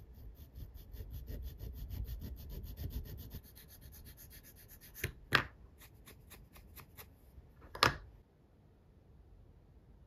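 Diamond needle file rasping in quick, even strokes against the wire spoke ends of a 1/12 scale plastic model wheel. Two sharp clicks follow, one near the middle and one near the end.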